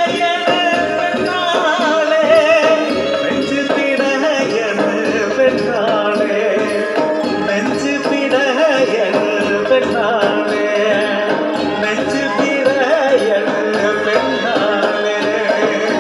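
Folk song in Malayalam: a singing voice over hand percussion keeping a steady beat.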